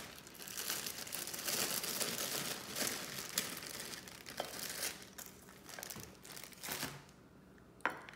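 Zip-top plastic bag crinkling as dates are handled inside it, fading away after about seven seconds, with one sharp tap near the end.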